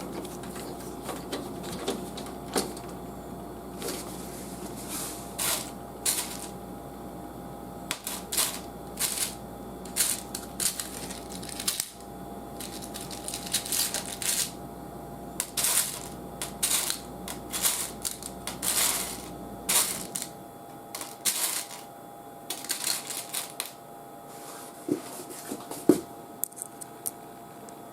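Hands working on computer parts and the PC case: an irregular run of short clicks, taps and scrapes of plastic and metal, with a faint steady hum underneath.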